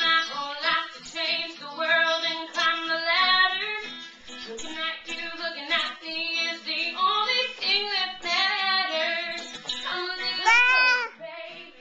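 A young female voice singing a song over music with guitar, rising to a high, swooping note about ten and a half seconds in.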